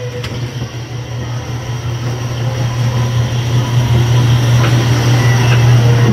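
Steady low rumble of a dark-ride vehicle rolling along its track, growing louder.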